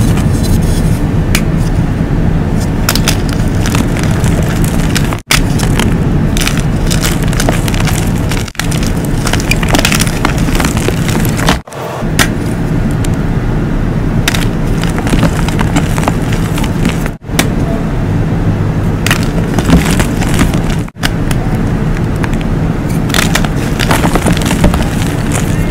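Blocks of dyed gym chalk being crushed and crumbled by hand over loose chalk rubble: a gritty crunching and scraping with many sharp little cracks. The sound breaks off abruptly for an instant about five times.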